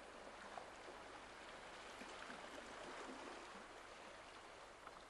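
Faint, steady rushing of sea water, swelling slightly partway through.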